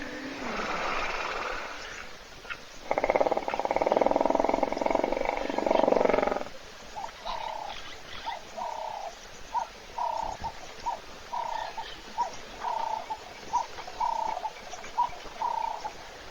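Hippopotamus vocalizing: a loud, rasping, pulsed call lasting about three seconds, then a run of about fifteen short grunts, one every half second or so.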